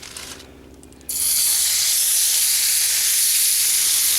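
Olive-oil-coated chicken tenderloins frying in a hot mess-kit pan, breaking into a loud, steady sizzle about a second in.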